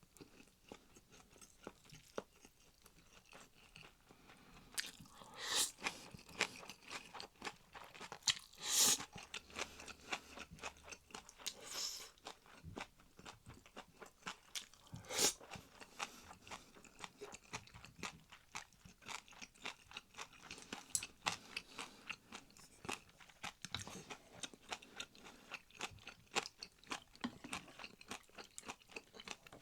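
A person chewing and crunching food, with a steady run of small quick mouth clicks and a handful of louder, sharper crunches spread through.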